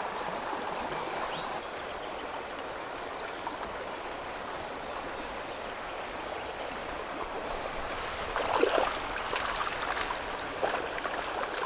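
Stream water running steadily around the wader. Near the end come a burst of splashing and a scatter of sharp clicks.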